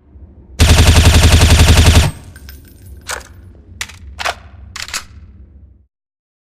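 M4A1 carbine firing one fully automatic burst of about a second and a half, at roughly ten rounds a second. A few short metallic clinks follow.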